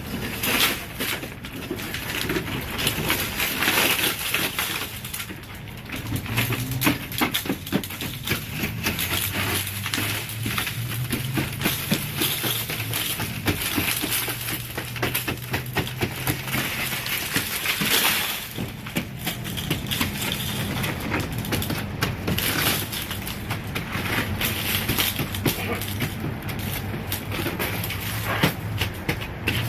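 Glass shards of a broken outer pane of a double-pane window being knocked out: continual crunching, cracking and clinking of breaking and falling glass.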